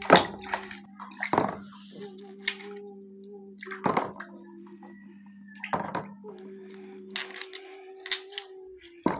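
Water splashing and sloshing in a plastic basin as a hand places stones in it, in about six separate splashes. A steady hum runs underneath.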